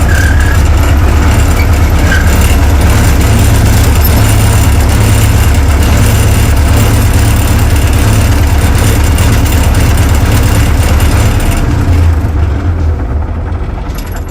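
Tractor engine running steadily, with a heavy low rumble and a hiss over the top. About twelve seconds in the hiss drops away and the sound starts to fade.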